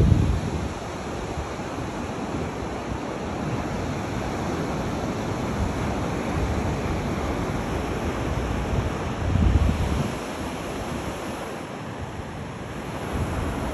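Steady wash of surf with wind buffeting the microphone, the gusts strongest at the start and again about nine seconds in.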